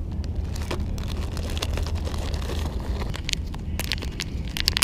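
Wind noise on the microphone as a steady low rumble, with sharp clicks and rattles of a clear plastic lure box being opened and handled, busiest over the last two seconds.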